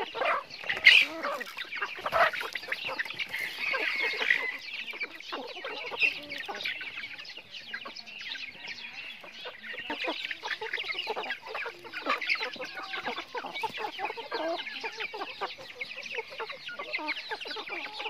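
A flock of chickens clucking and chattering continuously while they feed. A couple of sharp knocks come in the first few seconds, the loudest about a second in.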